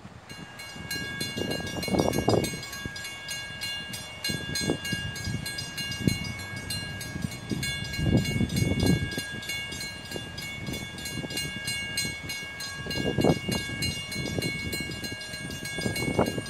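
Railroad grade-crossing warning bell ringing steadily in quick, even strokes, while road vehicles pass by every few seconds.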